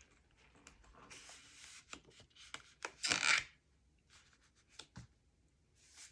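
Cardstock being handled and rubbed as a paper flap is slid into place and pressed onto an album page: light taps and short brushing rubs, the loudest a half-second rub about three seconds in.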